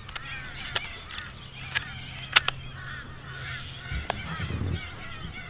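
Geese honking in the background, repeated short calls, with a few sharp clicks scattered through and a low hum that stops about four seconds in.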